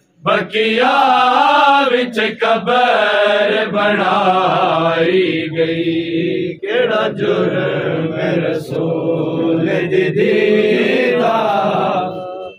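Group of men reciting a noha, a Shia lament, in a slow mournful chant with no instruments, the lead voices carrying the melody. The singing breaks off briefly near the end.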